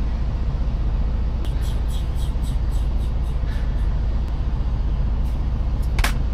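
Semi-truck diesel engine idling with a steady low rumble, heard from inside the cab. A quick run of faint light ticks comes about a second and a half in, and a single sharp click near the end.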